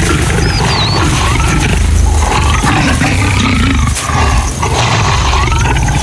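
Leopards growling during mating, a low, continuous rumbling snarl.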